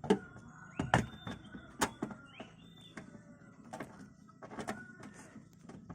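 Several sharp knocks and clicks of parts being handled inside a car during floor mat and trim fitting, the loudest three within the first two seconds.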